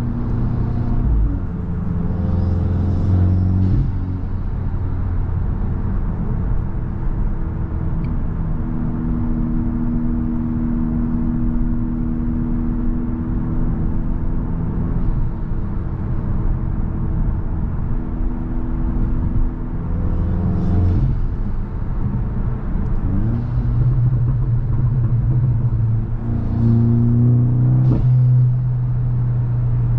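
A VW Mk8 Golf GTI's turbocharged 2.0-litre four-cylinder running through an aftermarket iE catback exhaust and resonator while driving. The engine note follows the throttle: a loud low drone in the first few seconds, a steady cruising hum through the middle, pitch sweeps about twenty seconds in, and a loud low drone again near the end.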